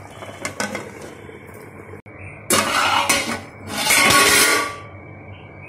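A steel plate lid clinking against an aluminium cooking pot as it is lifted off, followed by two louder, noisy rushes of about a second each, like metal being handled and scraped.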